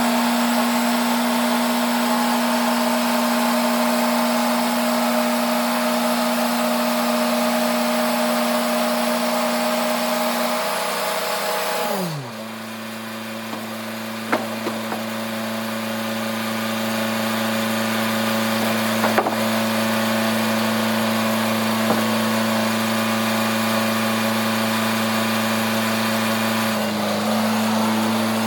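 Sawmill machinery running with a steady hum. About twelve seconds in the sound changes abruptly: the pitch slides down and a different, lower hum takes over and builds again. A few sharp knocks follow.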